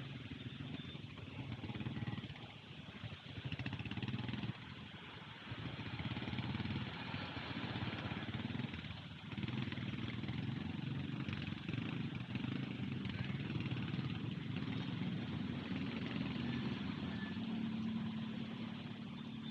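Street traffic heard from a moving bike in the rain: motorcycle and motor-tricycle engines running close by, over a steady noise of tyres on the wet road.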